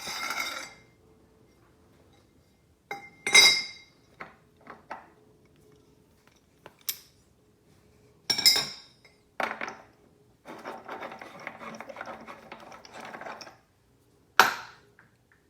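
Metal tools clinking and clanking against the Ducati 848's rear axle nut, with a few sharp clanks and a stretch of quick rattling from about two-thirds of the way in while the socket is worked on the nut.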